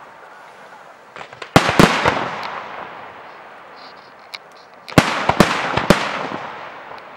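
Aerial firework shells bursting in two volleys of sharp bangs, about a second and a half in and again about five seconds in. Each volley is followed by an echoing rumble that dies away.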